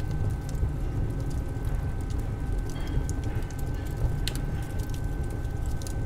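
Layered old-bakery kitchen ambience: a steady low rumble with scattered light crackles and clicks, and a faint steady high tone.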